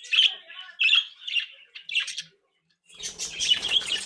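A group of budgerigars chirping and chattering in short bursts, a brief pause about two and a half seconds in, then busier chatter over a faint low background noise.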